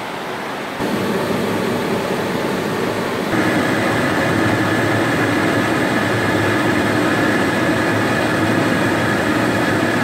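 The burner blower of a Fossati Lampo 11 gas furnace starts up about a second in and runs with a steady rushing noise. A steady whine joins it a few seconds later. This is the burner's start-up run before ignition, with the furnace chamber still unlit.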